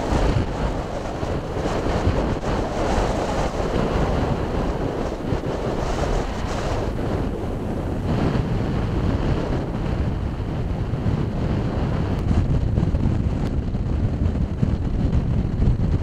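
Gale-force wind buffeting the microphone, a heavy low noise that rises and falls with the gusts, with surf breaking on the shore underneath.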